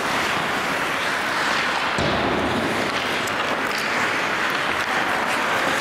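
Ice hockey rink during play: a steady noisy wash of skates on ice and arena hum, with a louder low swell about two seconds in and a few sharp clicks of sticks and puck around three seconds in.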